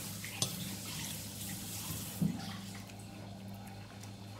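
Quiet eating sounds from a metal spoon in a ceramic soup bowl: one sharp clink about half a second in and wet mouth and broth sounds, over a steady low hum.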